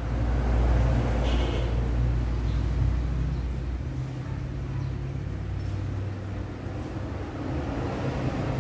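A steady low rumble with a deep hum, loudest over the first four seconds and then easing.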